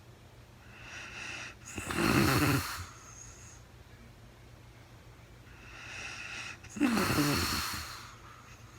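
A sleeping woman snoring: two slow breaths about five seconds apart, each a soft rushing breath that breaks into a louder rasping snore.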